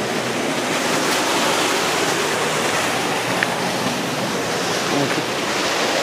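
Steady rush of river water flowing over rocks.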